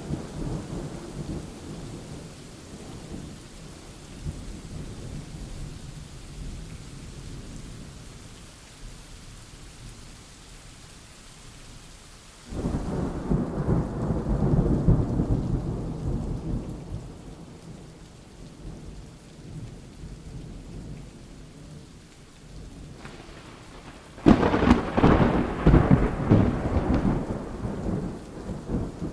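Steady rain with two rolls of thunder: one breaks in suddenly about halfway through and rumbles away over several seconds, and a sharper, louder clap comes about five seconds from the end and rumbles on for a few seconds.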